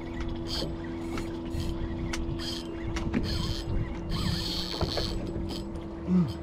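Tsunami SaltX 6000 spinning reel working against a strong hooked fish: short, irregular bursts of raspy clicking from the reel's mechanism, over a steady low hum.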